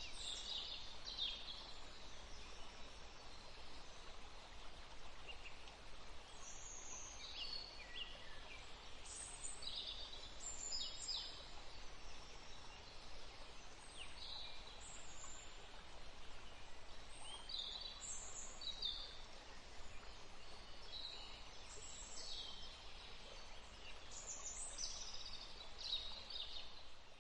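Several wild birds chirping and calling in a forest, short high notes coming every second or so over a steady faint background hiss.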